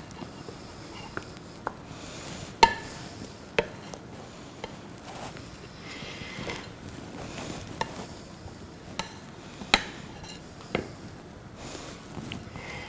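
Wooden spatula scraping and tapping against a ceramic bowl and plate as diced tomato salad is spooned out, with scattered sharp clicks, the loudest about two and a half and ten seconds in.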